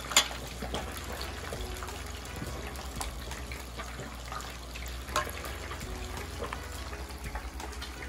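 Liquid bubbling on a gas stove as greens cook, with a few sharp clinks of utensils against a stainless steel pot, the loudest just after the start and another about five seconds in.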